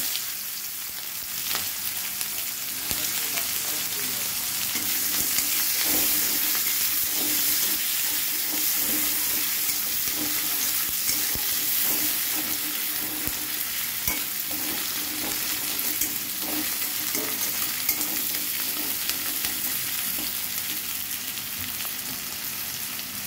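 Sliced onions frying in hot oil in a metal kadai: a steady sizzle, with a metal spatula repeatedly scraping and stirring them against the pan.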